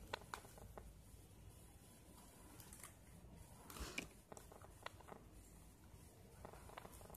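Near silence with faint clicks and rustles of stiff plastic basket-weaving wire being handled and knotted by hand: a few clicks near the start and a louder brief cluster about four seconds in.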